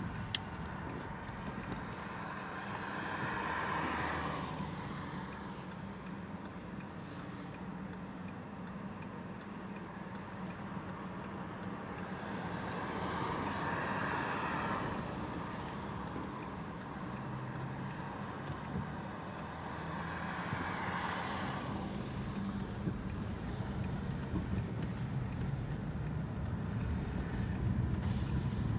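Audi 2.7T twin-turbo V6 engine running steadily, with a hissing whoosh that swells and fades three times, several seconds apart. This is the unexplained turbo hiss and flutter the owner is asking about.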